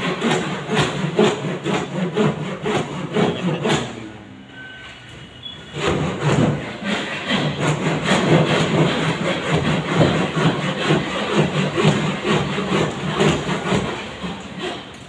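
Rapid, rhythmic rasping strokes, several a second, with a quieter break of about two seconds some four seconds in.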